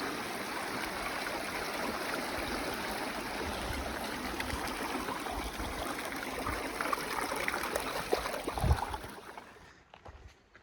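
A small mountain stream running, a steady rush of water that fades out near the end, with a single low thud shortly before.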